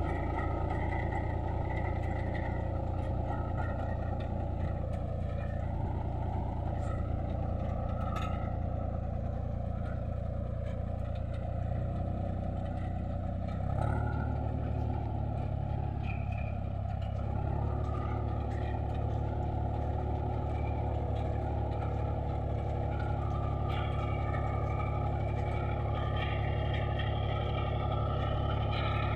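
Tractor's diesel engine running steadily under load while pulling a potato planter through the soil; the engine note shifts about halfway through.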